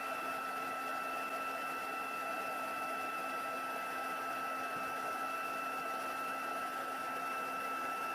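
Stampin' Up! embossing heat tool running steadily: its fan blowing with a constant high whine over a low hum, heating layers of embossing powder to melt them.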